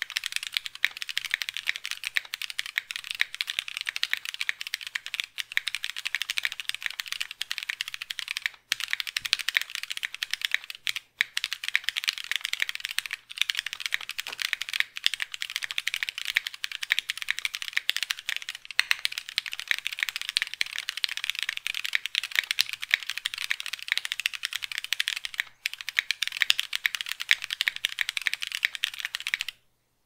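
Fast continuous typing on a compact mechanical keyboard fitted with stock Keyfirst Cream linear switches, made by Gateron: a dense clatter of keystrokes with a few brief pauses.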